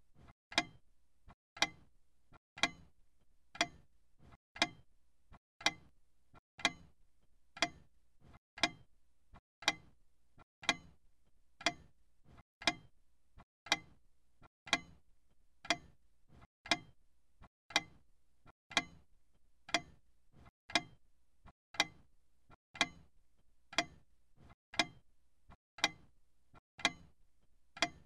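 A clock ticking steadily, with sharp, evenly spaced ticks and the loudest about a second apart.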